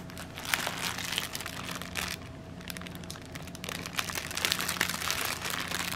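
Clear plastic bag of packed diamond-painting drill bags crinkling as it is handled and turned, a fast run of small crackles that eases off for a moment midway.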